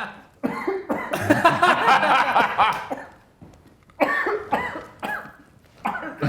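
A man coughing in three spells, straining and gagging as he forces food down.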